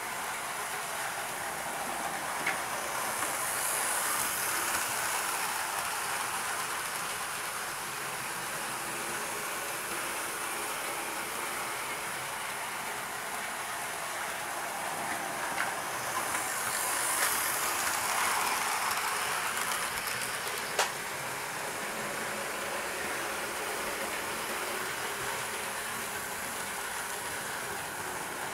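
Hornby OO gauge model train running round an oval track: a steady whirring rattle of the motor and wheels on the rails, swelling twice as the train passes close, with a few sharp clicks.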